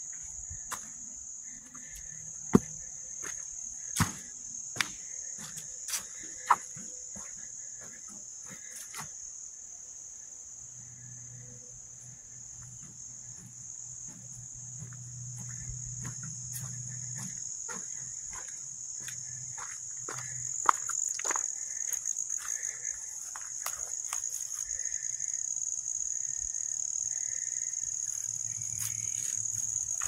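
Steady high-pitched insect chorus in summer woods, running unbroken. Over it come the hiker's footsteps on the dirt trail: a few sharp knocks in the first several seconds, then denser, steadier steps from about twenty seconds in.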